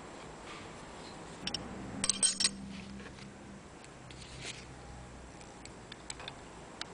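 Metal hand tools and a brake hose's metal end fittings clicking and clinking on a workbench as they are picked up and handled, with a quick cluster of louder clinks about two seconds in and scattered single ticks after.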